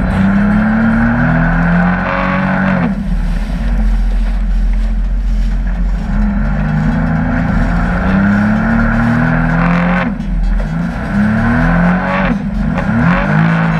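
Sea-Doo jet ski engine running at speed, its pitch dipping and climbing again with the throttle about three seconds in, around ten seconds in and near the end. Wind rushing over the microphone and water spray hissing off the hull run under it.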